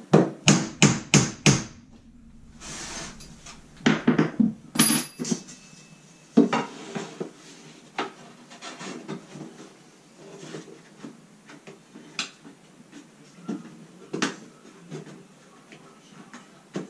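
Hammer tapping a small finish nail into wall trim: a quick run of five sharp strikes, another cluster about four seconds in, then lighter scattered taps.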